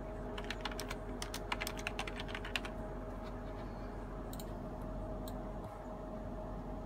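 Typing on a computer keyboard: a quick run of keystrokes over the first few seconds, then a couple of single key taps, over a steady hum.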